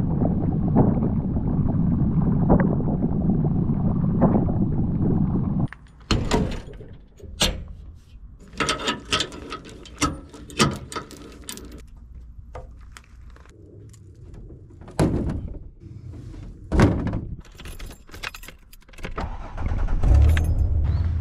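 A boat running, with wind rumbling on the microphone for about six seconds. It cuts off abruptly to a string of sharp clicks and clinks of gear being handled. About a second before the end, a low steady motor hum comes in.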